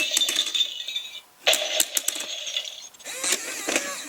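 Toy electronic scoring target being hit: a sharp clack about a second and a half in sets off its bright, ringing electronic sound effect, which fades. Near the end comes a warbling electronic tone.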